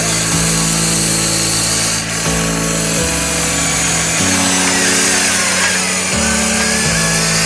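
Whine of a radio-controlled model's small electric motors, its pitch wavering as the load changes, over background music with a bass line that steps between notes.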